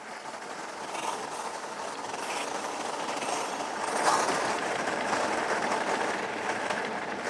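The 26-inch, 4-inch-wide fat tires of an e-bike rolling over loose, deep pea gravel, making a steady gritty crunching rumble with scattered small clicks of stones. It swells about four seconds in.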